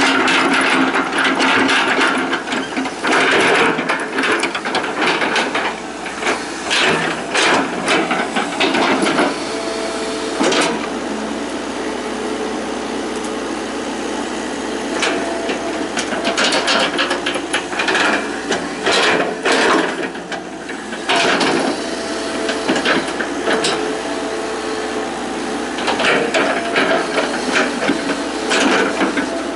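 Hitachi EX120 hydraulic excavator at work: a steady machine and hydraulic noise with frequent knocks and clatters, and a whine that comes and goes now and then.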